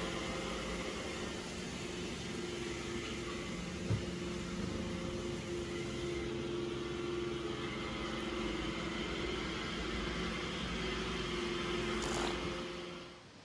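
Ragamuffin cat purring steadily, close up, while it kneads, with a soft knock about four seconds in. The rumble stops suddenly near the end.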